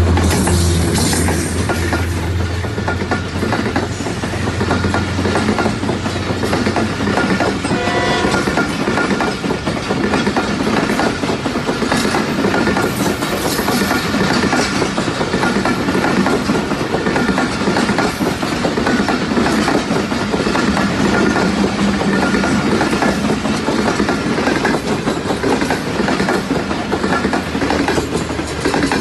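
A diesel locomotive running past at close range with a deep engine hum that fades within the first couple of seconds. A long train of passenger coaches follows, its wheels clattering steadily over the rail joints.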